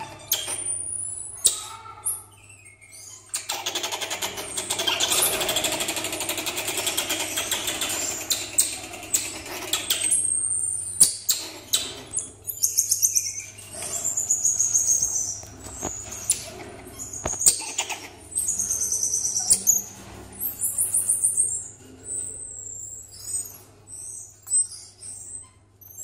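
Common marmosets calling with repeated high-pitched chirps and trills, over clicks and a stretch of scratching and rustling in the first half as they clamber on the wire cage. A steady low hum runs underneath.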